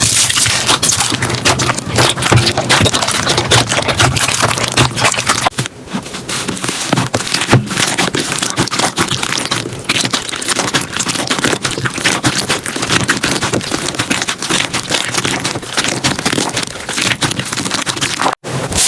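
Slime being squeezed and pressed by hand, giving a dense, continuous crackling of small clicks and pops. It eases briefly about six seconds in and cuts out for a moment near the end.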